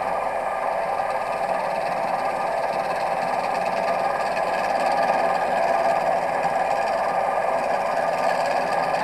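Sieg C3 mini lathe running steadily while a wooden pen blank is turned on it, its motor giving an even whine that gets a little louder about halfway through.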